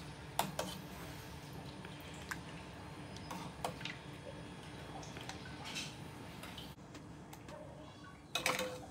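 A stainless steel ladle scooping soup from a steel pot and pouring it into a bowl: scattered light clinks of the ladle against the pot, with soft dripping and splashing of the soup. There is a louder clink near the end, over a steady low hum.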